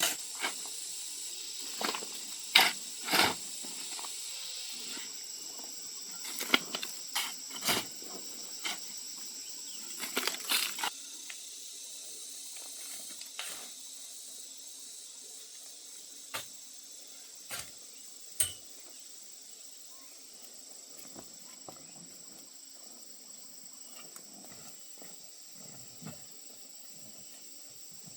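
Steady high insect drone, a chorus of crickets or cicadas, with scattered sharp knocks and rustles close by, frequent in the first ten seconds or so and sparse after.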